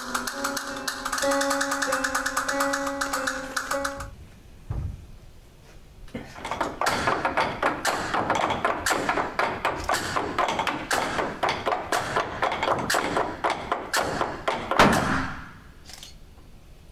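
Flamenco guitar strumming with held notes stops about four seconds in. After a single thud and a short lull, a fast run of sharp percussive taps in flamenco rhythm goes on for about eight seconds and ends on one loud hit.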